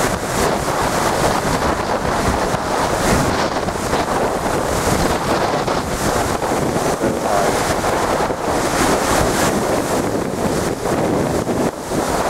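Stormy sea surf breaking and surging against a stone sea wall, with strong wind buffeting the microphone in a steady, loud rush.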